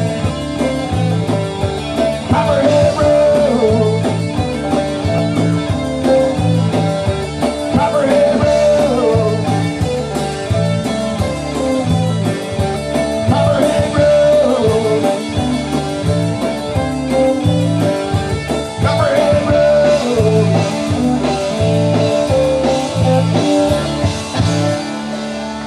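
Live rock band playing a blues-rock number: electric guitars, bass and drums with a steady beat, the lead line bending in pitch every few seconds.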